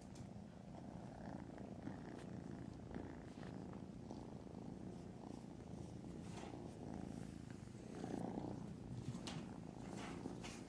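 Kitten purring steadily, close by, with a few faint rustles in the second half.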